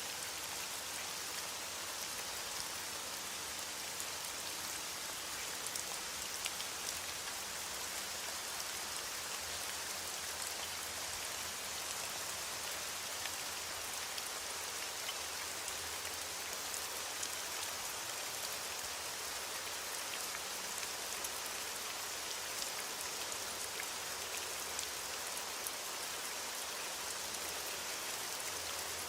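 Steady rain falling and hitting surfaces, a continuous even hiss with scattered drop ticks.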